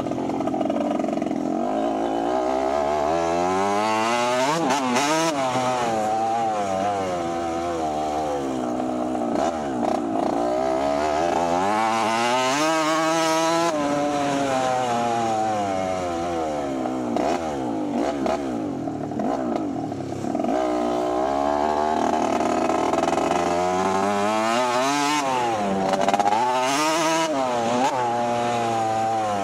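Motocross dirt bike engine being ridden hard, its pitch climbing and dropping over and over as it revs through the gears, highest about five, thirteen and twenty-six seconds in.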